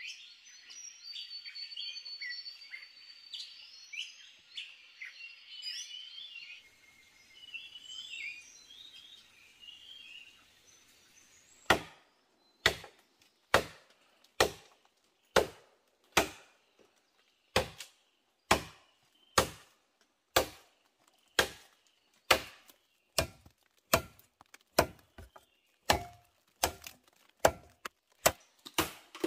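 Forest birds chirping and calling for the first ten seconds or so. Then steady chopping blows on wood take over, about one sharp knock a second.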